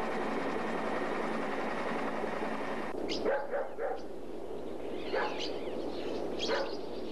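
A dog barking and yelping in short bursts, three quick barks about three seconds in and two more spaced out near the end, over a steady background hiss.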